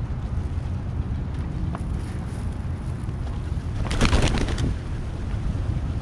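A brief flurry of pigeon wingbeats about four seconds in, over a steady low rumble of wind on the microphone.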